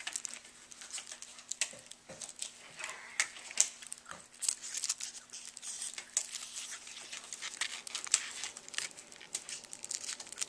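Disposable exam gloves being pulled onto the hands: steady crinkling and rustling of the thin glove material, broken by many quick little clicks and snaps.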